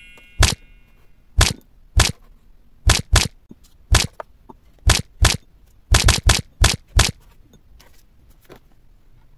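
Kinetic sand being cut or crushed: about a dozen short, sharp cracks at irregular intervals, with a quick run of several together around six seconds in.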